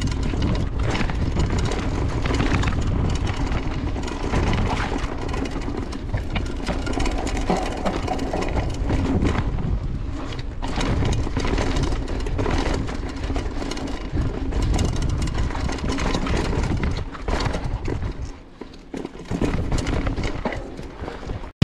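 Mountain bike ridden fast down a dry dirt trail: wind buffeting the rider-mounted camera's microphone, with tyres crunching over dirt and the bike rattling over bumps. The noise eases briefly near the end.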